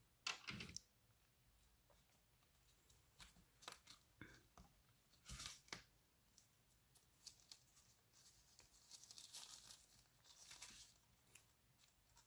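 Faint crinkling and rustling of a thin clear plastic sleeve being handled and slid off a model train car, in several short bursts.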